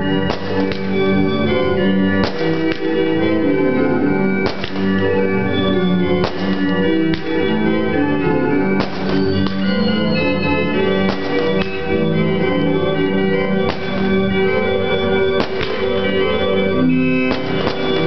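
Organ playing a piece in full, held chords that change every second or two.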